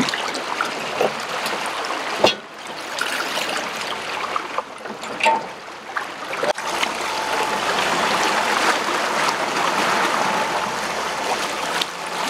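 Water rushing and splashing along a slowly moving boat's hull, with a few sharp knocks and clinks in the first half as the paravane fish and its chain are handled at the rail, the loudest knock about two seconds in. From about six and a half seconds the water rush is steadier and louder.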